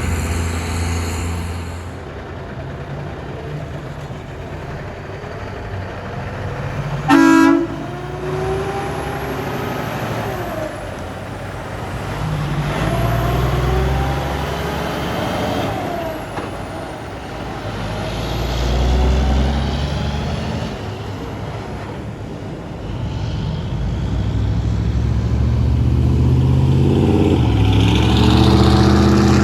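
Semi trucks passing one after another, each engine drone swelling and fading as it goes by. A short, loud horn blast comes about seven seconds in and is the loudest sound.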